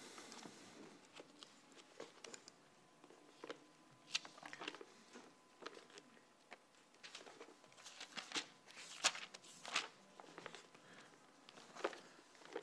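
Faint, scattered rustling and small clicks of Bible pages being turned, a few soft touches at a time.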